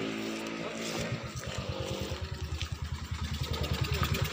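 Dirt bike engine running at low revs. A steady note about the first second gives way to an even, low pulsing of about ten beats a second, which grows louder near the end.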